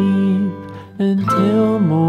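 Background children's music with plucked guitar carrying a melody; it drops away briefly about half a second in and comes back at about one second.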